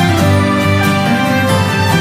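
Background music with no voice over it.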